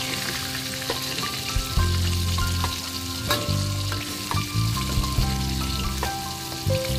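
Chicken pieces sizzling as they fry in hot oil in an aluminium wok, with a few sharp clicks and scrapes as a spatula turns them against the pan. Music with held notes and a bass line plays underneath.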